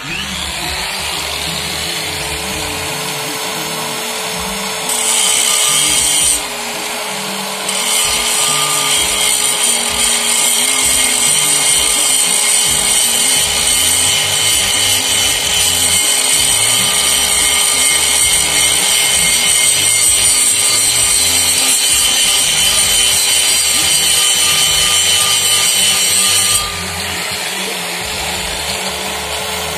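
Electric angle grinder spinning up and running with a steady whine, its disc grinding against the metal rim of a brake drum. The grinding drops out briefly about six seconds in, then runs on and lifts off near the end while the motor keeps running.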